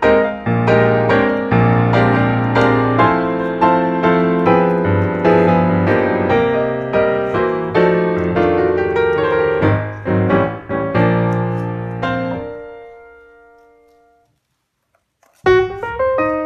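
Piano music: a run of struck notes and chords that ends about twelve seconds in, its last chord ringing out and fading to silence, then the piano starts again about a second and a half later.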